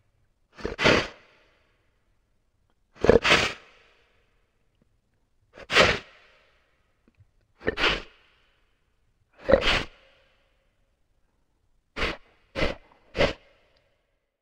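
An animal's sharp snorts blown out through its nostrils: a short, noisy blast every two seconds or so, some of them doubled, then three quick snorts in a row near the end.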